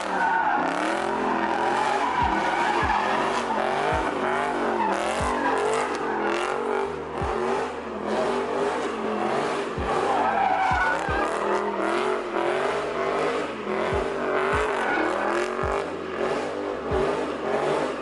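A car drifting: its engine revs up and down over and over while the tyres squeal and slide.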